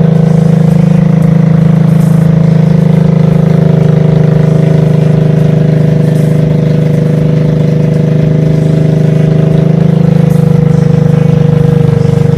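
Motorcycle engine idling steadily on HHO gas from water electrolysis instead of petrol, the gas drawn through a modified air filter into the unmodified carburettor.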